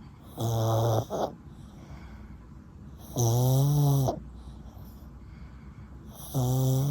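A sleeping Yorkshire terrier snoring: three pitched snores about three seconds apart, each lasting under a second, the first followed by a short extra catch.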